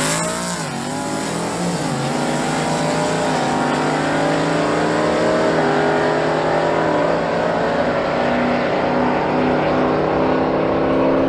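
Drag-racing pickup truck's engine at full throttle, accelerating away down the strip. Its pitch climbs through the gears and drops at a shift about a second in and again about seven seconds in.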